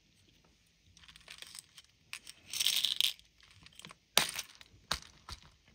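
Small glass cabochon beads rattling as they are tipped from a plastic bead tray into a small clear plastic compartment, then sharp clicks, twice, as the plastic compartment lid is snapped shut.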